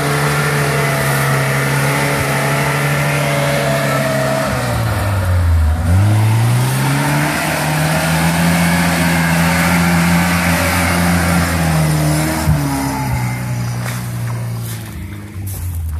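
Lada Niva's engine held at high revs while its wheels churn through a muddy rut. The revs drop and climb back up about five or six seconds in, fall again past the middle, and the sound fades near the end as the car pulls away.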